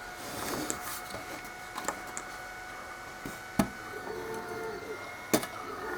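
Clicks and knocks from handling the opened mini LED moving-head light and its parts, with three sharp ones at about two, three and a half, and five seconds in, over a faint steady whine.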